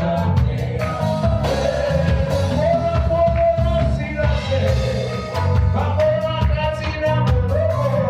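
Live gospel worship band playing an upbeat song with bass, drums and a singing vocal line.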